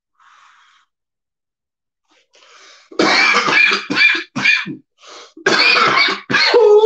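A man coughing in a run of harsh bursts starting about three seconds in, then a short pause and another bout near the end.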